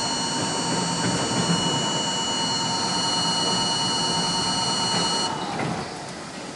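R42 subway car running on the track: steady wheel-on-rail rumble with a high, even whine that cuts off suddenly about five seconds in, after which the running noise fades as the train slows.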